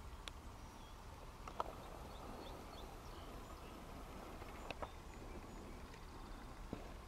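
Quiet outdoor field ambience: a steady low rumble, faint high bird chirps, and four short sharp clicks spread through.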